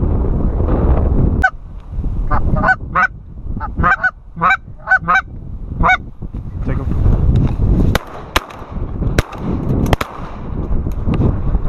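Wind buffeting the microphone, then geese honking, about nine honks over four seconds. Near the end comes a quick string of several sharp shotgun shots.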